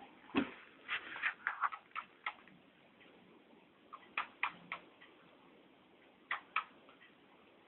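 Pet parrot coughing: short dry clicks and raspy bursts in small groups. There is a quick run of them in the first two seconds or so, then three about four seconds in and two more near the end.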